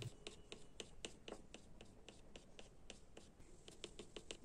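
Brown colored pencil scratching on watercolour paper in quick, short strokes, several a second, as fur lines are hatched into a drawn face. Faint.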